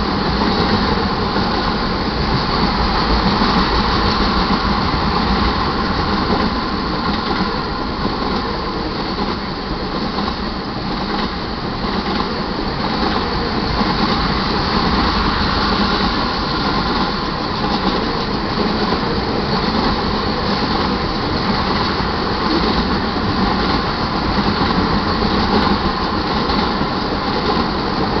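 Crude oil tank cars of a freight train rolling past, a steady rumble of steel wheels on the rails.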